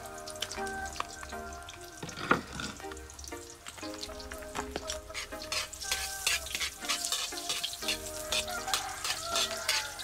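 Chopped garlic and onion sizzling and crackling in a wok, the crackle growing denser in the second half, while a metal ladle stirs them. There is one sharp clink about two seconds in.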